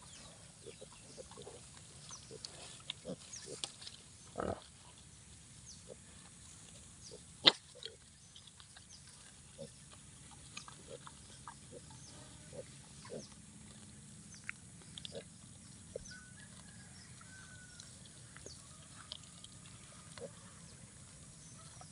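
A sow and her piglets grunting softly now and then as they graze and root in the grass. A single sharp click about seven and a half seconds in is the loudest sound.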